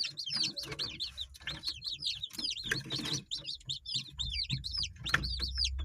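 A crowd of young kampung chicks peeping, many short high-pitched calls overlapping without a break. A low rumble comes in about four seconds in.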